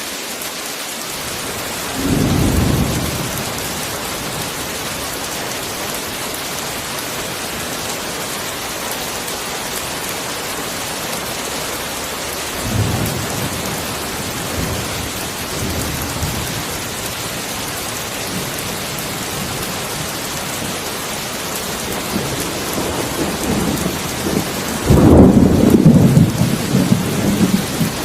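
Heavy rain falling as a steady hiss, with rolls of thunder: a short rumble about 2 seconds in, a softer one midway, and a long, loud peal near the end.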